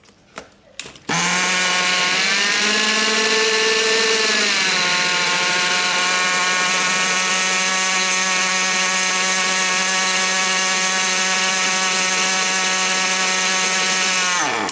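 Nitro RC truck's small glow-fuel engine running at a steady, loud high idle, its revs lifting a little about two seconds in and settling back about five seconds in, then winding down and stopping near the end. The high idle is the sign of a low-speed needle set too lean.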